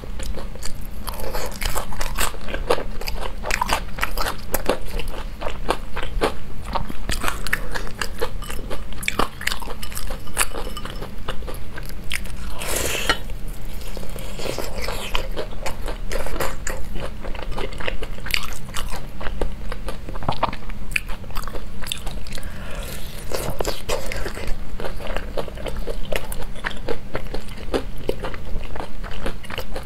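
Close-miked biting and chewing of crisp deep-fried lotus root patties: a dense run of crunches, with one longer, louder crunch about halfway, over a low steady hum.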